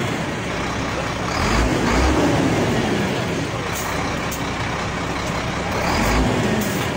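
A heavy truck's engine running steadily.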